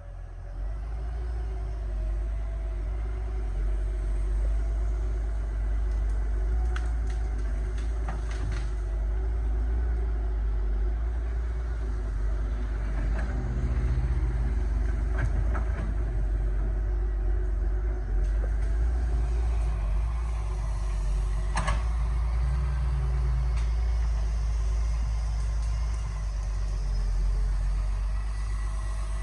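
Excavator's diesel engine running steadily with a deep rumble, with a few scattered knocks over it.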